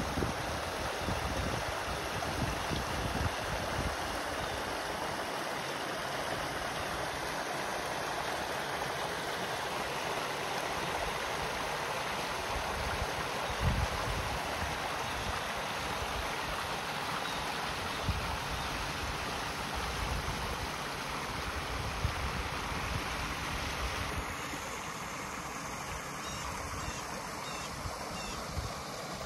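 Small waterfall splashing down a rocky cascade into a pond: a steady rush of water, with occasional low thumps beneath it.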